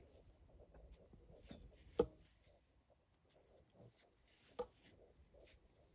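Two sharp clicks of knitting needles, about two and a half seconds apart, over faint rubbing and rustling of yarn as stitches are worked.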